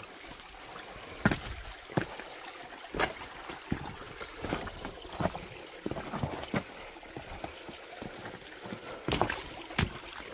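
Footsteps pushing through bush undergrowth, with a sharp step or snap roughly every three-quarters of a second, over the steady trickle of a small creek.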